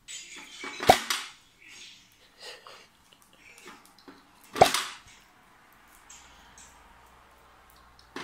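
Tennis ball knocking into a plastic automatic dog ball launcher: a sharp knock about a second in and another after four seconds, with fainter scrapes and clicks between.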